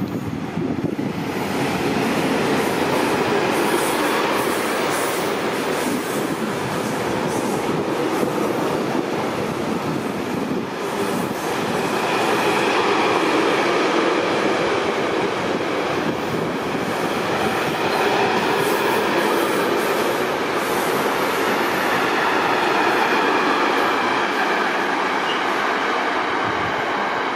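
A freight train hauled by an ÖBB Taurus electric locomotive passing through a station: a steady loud rolling noise of wheels on rail, rising about a second in, with repeated clicks from the wagons running over the track.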